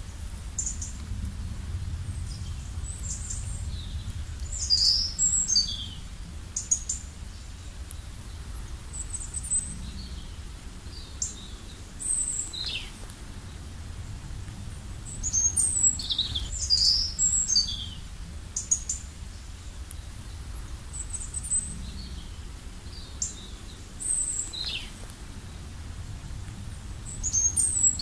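Birds chirping: short high calls in clusters every few seconds, some sliding down in pitch, over a steady low rumble.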